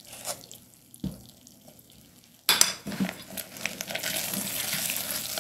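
Silicone spatula stirring baking soda into hot macadamia-nut brittle candy in a glass mixing bowl. After a quiet start with a single tap about a second in, scraping and a steady hiss begin suddenly about halfway through as the candy foams up, reacting with the soda.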